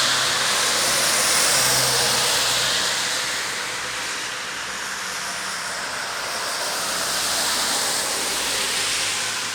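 Rain falling with a steady hiss that slowly swells and fades.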